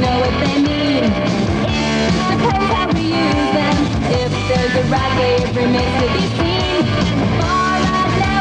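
Rock song with electric guitar playing over a full band.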